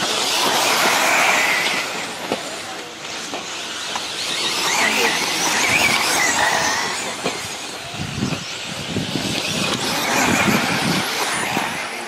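A pack of 1/10-scale electric 4WD off-road RC buggies racing past, their motors whining in three swells that rise and fall as the cars go by.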